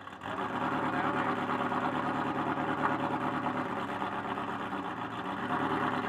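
Ferrari F40's twin-turbo V8 idling steadily through what is thought to be a non-stock exhaust.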